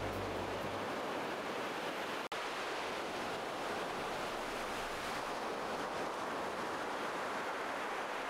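Steady wash of sea surf on the shore, with a brief break about two seconds in.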